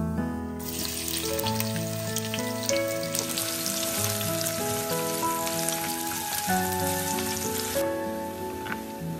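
Sliced onion sizzling and crackling in hot mustard oil in a stainless steel pot as it is stirred with a wooden spoon. The sizzle starts suddenly just under a second in, as the onion goes in, and stops abruptly near the end, over background music.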